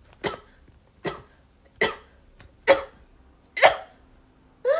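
A person's rapid-fire sneezing fit: five short, sharp sneezes just under a second apart, the last two the loudest.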